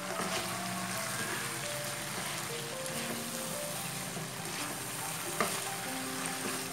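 Red chilli sambal with anchovies and petai sizzling in a nonstick wok as a spatula stirs it, with soft scraping against the pan and one sharper click about five seconds in.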